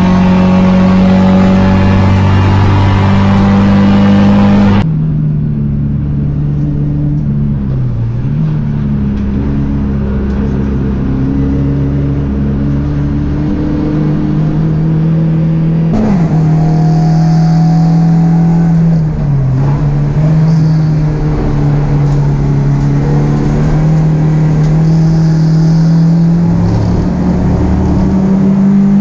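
Onboard, in-cabin sound of BMW 318ti (E36 compact) race cars' four-cylinder engines running hard, the pitch holding or rising slowly with brief dips. The sound changes character abruptly twice as the view switches from one car to another.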